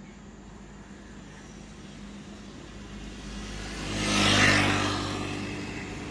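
A motor vehicle passing close by, its engine hum and noise swelling to a peak about four and a half seconds in, then fading.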